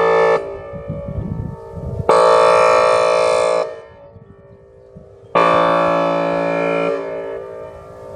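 Whelen Vortex R4 electronic warning siren sounding its air horn signal: a loud, steady, harsh horn chord in on-off blasts. One blast ends just after the start, then two blasts of about a second and a half each follow, about three seconds apart, each fading off between them.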